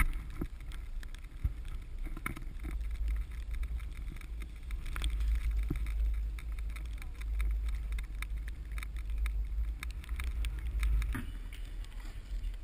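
Wind buffeting an action camera's microphone: a steady low rumble with scattered small clicks and knocks.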